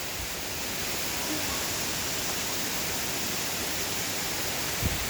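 Waterfall's steady rush of falling water, with a brief low thump near the end.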